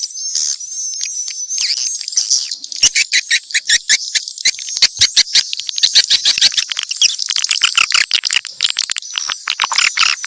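Swiftlet calls, as used in a swiftlet-house lure recording: high chirping twitters, joined about two and a half seconds in by fast, dense clicking chatter.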